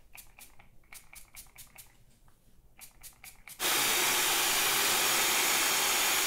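Aerosol hair spray can rattled in quick runs of clicks, then sprayed in one steady loud hiss that starts abruptly about three and a half seconds in.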